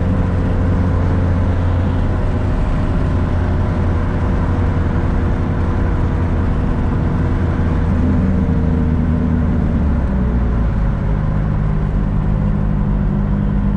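Turbocharged Nissan 240SX (S14) driving, heard from inside the cabin: a steady engine note with road noise. The engine note changes pitch about ten seconds in.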